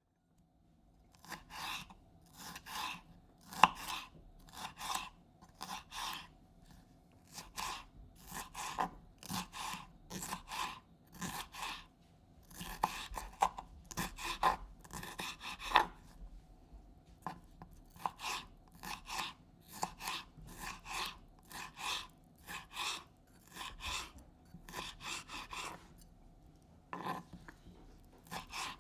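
Knife chopping peppers on a cutting board: a steady run of short, crisp cuts, about two a second, with a few brief pauses between runs.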